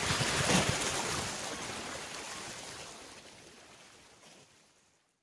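Sea waves washing, a steady noisy rush that fades away over a few seconds.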